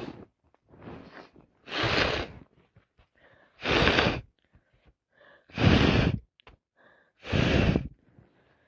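A woman sneezing four times in quick succession, about every two seconds, with a short gasping in-breath before each sneeze.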